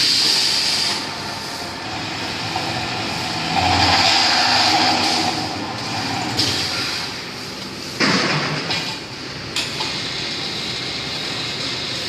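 Automatic pipe-cutting machine for steel and stainless pipe running in automatic mode, giving a steady grinding mechanical noise. It swells louder near the start and about four seconds in, and a sudden louder stretch begins about eight seconds in.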